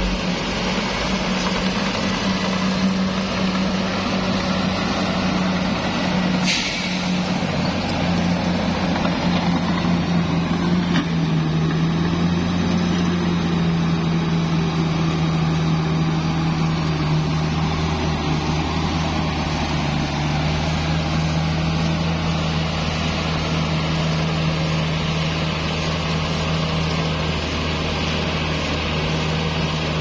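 Komatsu D68ESS crawler bulldozer's diesel engine running steadily while the machine pushes soil with its blade, with one sharp knock about six and a half seconds in.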